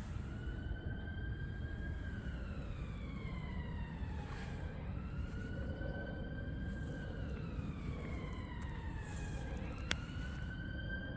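Emergency-vehicle siren wailing, its pitch rising and then slowly falling about every four seconds, over a steady low rumble. One sharp click near the end.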